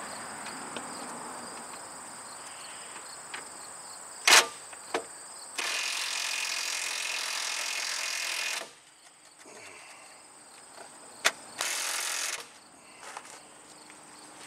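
Cordless impact wrench run on a tie rod end nut in two goes, about three seconds and then under a second, while the stud tends to spin with the nut; the wrench is short of power, and the mechanic thinks it may need a new battery. A sharp metal clank comes a little before the first run, and insects chirp steadily in the background.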